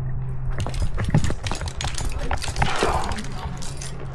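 Climbing rack and carabiners clinking and knocking irregularly as a climber moves on a rock route, with a brief rush of noise about three seconds in.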